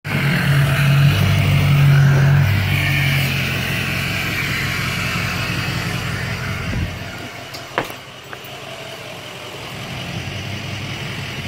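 Tow truck engine idling, loud at first and fading after about three seconds, with a sharp click about eight seconds in.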